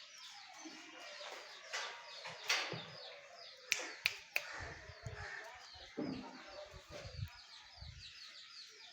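Birds chirping over and over in short, high notes, with a few sharp clicks about four seconds in and soft low thuds after that.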